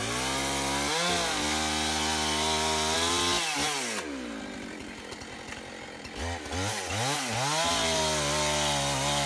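Two-stroke chainsaw running at high revs while cutting a tree. About four seconds in it drops back toward idle, then is revved up again with a couple of rising and falling blips, returning to full speed near the end.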